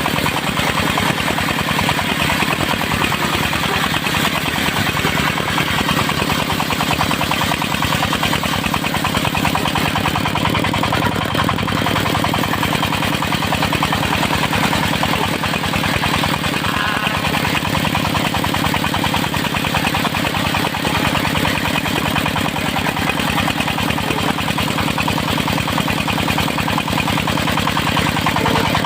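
Diesel engine driving a circular sawmill, running steadily with a fast, even pulse.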